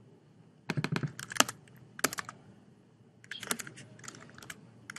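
Typing on a computer keyboard, entering a terminal command: three short runs of key clicks with pauses between them.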